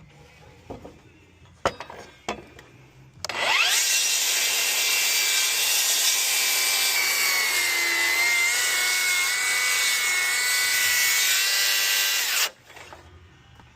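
Cordless circular saw spinning up about three seconds in with a rising whine, then cutting through a wooden rafter steadily for about nine seconds before cutting off. A few light knocks come before it starts.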